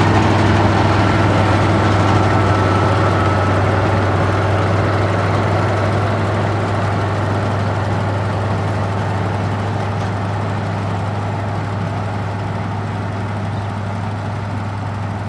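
Diesel engine of a rice combine harvester running steadily with a deep hum, slowly growing quieter.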